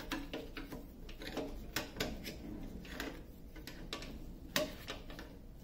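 Light clacks and knocks of a wooden poster-hanger rail against the tabletop, with scraping and rustling of the diamond-painting canvas as hands fit it into the rail. One sharper click comes a little past four and a half seconds in.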